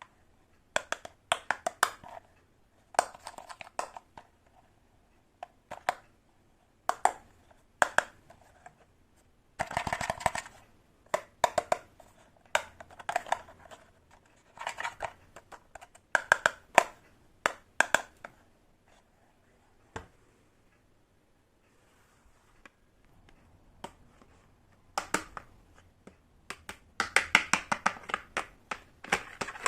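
Tiny toy kitchen pieces being handled and set down: clusters of small clicks and taps, with a quiet stretch of a few seconds past the middle.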